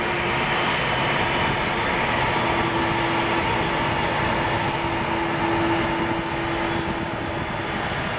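Boeing 767-300ER's twin jet engines running at taxi power as the airliner rolls by: a steady rush of engine noise with a held whine and a low hum that strengthens partway through.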